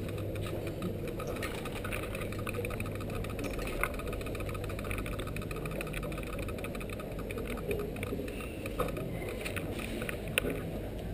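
Bicycle ride along a city street: a steady low rumble of tyres and wind on the microphone, with a few sharp clicks, one about four seconds in and two more near the end.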